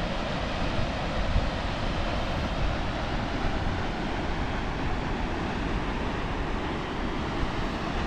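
Karakaya-Su waterfall, a steady, even rush of falling water.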